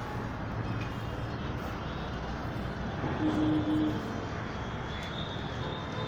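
Outdoor neighbourhood ambience: a steady rumble of distant traffic and wind, with a short low tone lasting under a second about three seconds in and thin high whistling tones near the end.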